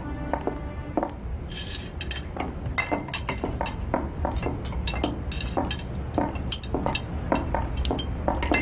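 Dishes, glasses and cutlery clinking at a meal table: many light, irregular clinks of tableware being handled.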